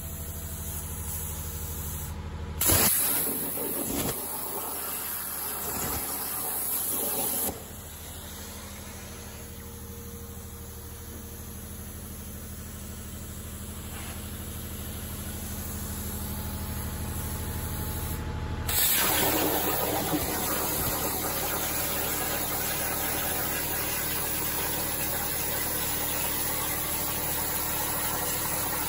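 CNC plasma cutting table at work: a steady machine hum with air hiss, broken by a few abrupt changes. About two-thirds of the way through, a steady, louder hiss sets in as the plasma arc cuts 12 mm steel plate at 90 amps.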